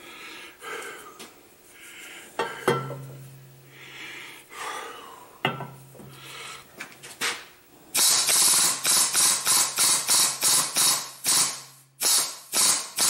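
Metal parts being handled at a shop press, with scattered knocks and scrapes. In the last five seconds comes a fast, even run of sharp rasping strokes, about three to four a second.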